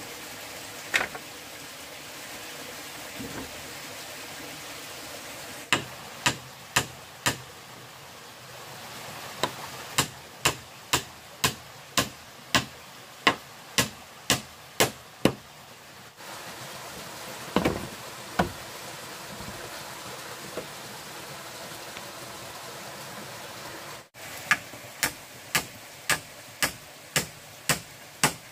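Runs of sharp, evenly spaced knocks, about two a second, from a tool striking bamboo, with pauses between the runs. A small stream rushes steadily underneath.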